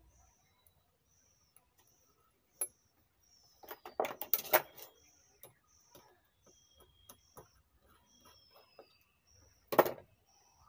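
Knocks and clatter of an amplifier chassis and hand tools being handled on a wooden workbench: a sharp knock, a burst of rattling about four seconds in, small clicks, and one loud knock near the end. A bird chirps faintly in the background, one short high call about every three-quarters of a second.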